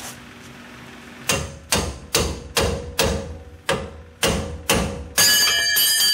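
Hammer blows on the front steering linkage of a 2000 Dodge Ram, striking to knock a tie rod end loose: eight sharp metal strikes about two a second. They are followed near the end by about a second of loud, ringing metallic clanging.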